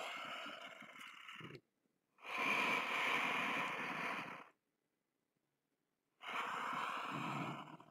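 A person's deep, audible yoga breaths, each lasting about two seconds. One breath trails off about a second and a half in, a second runs from about two to four and a half seconds, and a third begins just after six seconds, with dead silence between them. The breaths are paced with the movement: in on the lift, out on the bend.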